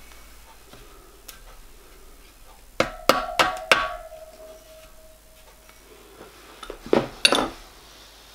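Small hammer tapping a rivet into the bottom corner of a copper model-locomotive boiler backplate. Four quick taps about three seconds in leave the copper shell ringing with a clear tone that fades over a couple of seconds, and two more knocks come near the end.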